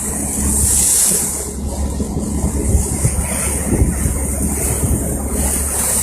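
Wind rushing over the microphone on a moving boat, swelling and easing in gusts, over a steady low engine rumble and the wash of water.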